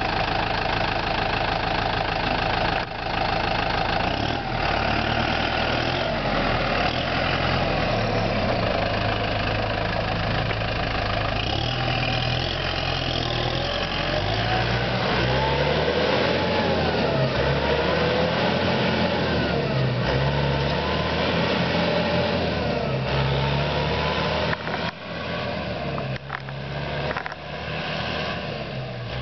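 Kubota M8540 tractor's four-cylinder diesel engine running, its pitch rising and falling as it pulls away. The sound fades and grows uneven in the last few seconds as the tractor drives off into the distance.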